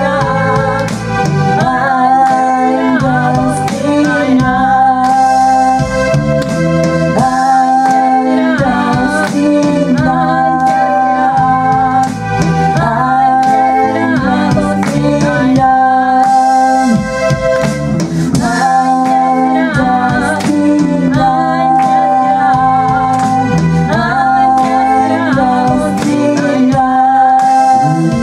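Live band playing a pop song on synthesizer keyboards with an organ-like sound and electric bass, with a woman singing lead in long held notes.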